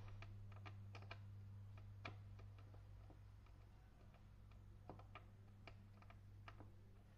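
Faint, scattered light clicks of a small screwdriver working the cord's terminal screws in the plastic rear terminal block of a Philips electric iron, over a steady low hum.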